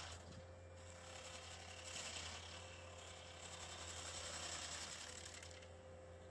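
Skid steer hydraulic stump grinder attachment cutting into a stump: a dense, rapid grinding chatter over the steady hum of the machine, swelling twice and easing off near the end.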